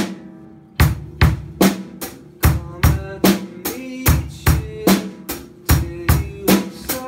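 Acoustic drum kit playing a rock beat of kick, kick, snare with eighth notes on the hi-hat, starting about a second in after a short pause.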